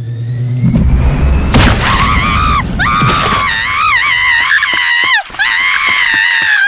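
Cartoon sound effects: a humming, rising tone builds into a low boom and a crash. Then a very high-pitched cartoon character's voice screams in a wavering pitch for several seconds, breaking off briefly near the end.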